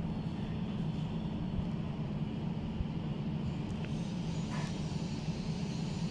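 Steady low hum of running equipment in a switchgear room, with a faint click about four and a half seconds in as keys on the relay's front panel are pressed.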